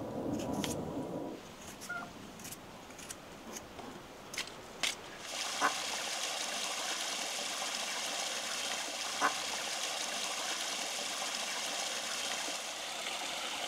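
Water running or pouring in a steady stream, starting about five seconds in after a few light clicks and taps, with a couple of sharp ticks over it.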